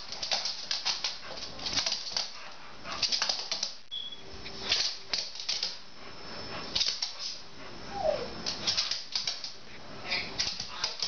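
Two bulldogs play-wrestling: bursts of rapid clicking and scrabbling of their claws on the kitchen's hard floor, mixed with dog breathing and play noises, and a short falling whine about eight seconds in.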